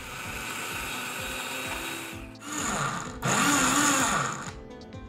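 Tarrington House personal blender grinding tomatoes, cashews, spinach and spices into a fine green paste: the motor runs steadily, then is pulsed twice, the second burst the loudest with its pitch dipping and rising, and stops near the end.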